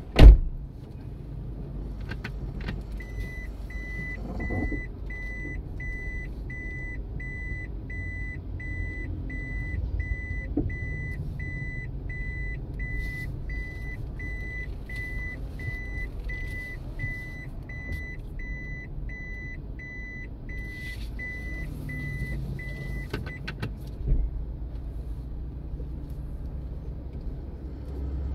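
Inside a Toyota Prius cabin: the car's warning beeper sounds over and over, about three high beeps every two seconds, the chime the Prius gives while in reverse, over a steady low rumble of the car and street. A loud thump comes just at the start, and a softer one a second after the beeping stops.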